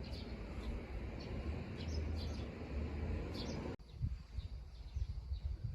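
Birds chirping in short, high calls over a low wind rumble on the microphone; the rumble cuts off abruptly about four seconds in, leaving the chirps and a few soft low thumps.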